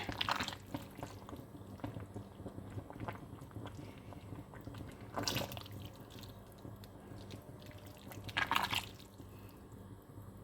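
Liquid splashing and sloshing in a pot of soup as chicken is put in: two short splashes, about five seconds in and again near the end, with faint drips and clicks between.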